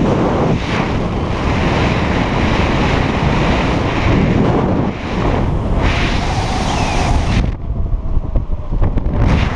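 Steady wind rushing over a skydiver's camera microphone during a descent under an open parachute canopy. About seven and a half seconds in, the hiss drops away for over a second, leaving a low rumble, then comes back.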